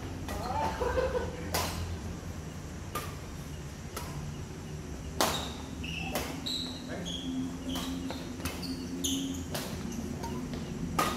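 Badminton rackets striking the shuttlecock in a rally: a sharp hit roughly once a second, over a steady low hum.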